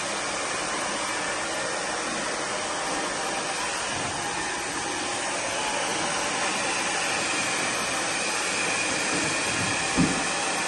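Hair dryer blowing steadily, with one short low thump near the end.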